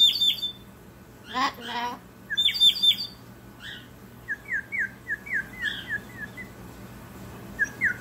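Water-filled ceramic bird whistle blown in bursts of bubbling, warbling trills: two loud warbles in the first three seconds, then a run of about eight softer chirping notes, and two more near the end. A short voice-like call sounds between the first two warbles.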